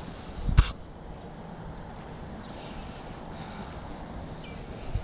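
Steady high-pitched insect buzz, like crickets, with one sharp knock about half a second in.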